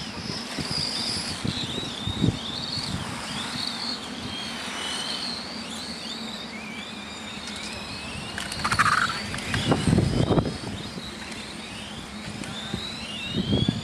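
Several electric 1/10-scale radio-controlled Formula 1 cars racing, their motors whining high and rising and falling in pitch as they accelerate and brake through the corners. There are louder rushes between about eight and ten seconds in as cars pass close.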